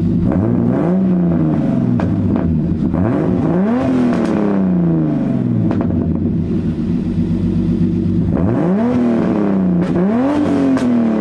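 Turbocharged BMW M50 inline-six running with its muffler deleted: a 3-inch turbo-back exhaust through a resonator into a blast pipe. It idles and is blipped four times, each rev rising and then falling back to idle.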